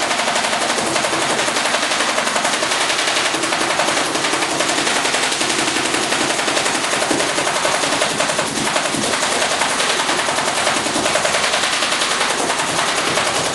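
CYMA M86A metal-gearbox electric airsoft AK-47 firing on full automatic in one long unbroken burst, a fast even run of shots, with the BBs striking a cardboard target.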